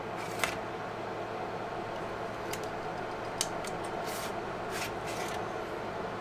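Rack-mounted storage server running with a steady fan hum, over which a hot-swap hard-drive caddy clicks and scrapes as it is pulled from its bay and handled: a sharp click about half a second in, then a cluster of clicks and short scraping rustles in the second half.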